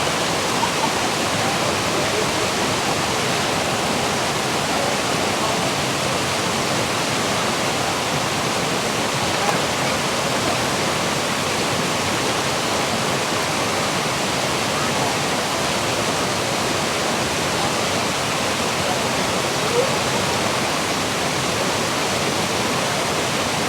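Steady, unbroken rush of falling water from a fountain or small waterfall, with faint crowd voices far off.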